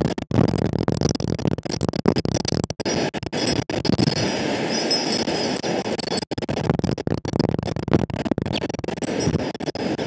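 Strong wind blowing on the microphone: a loud, rushing noise that rises and falls with the gusts and keeps cutting out for split seconds.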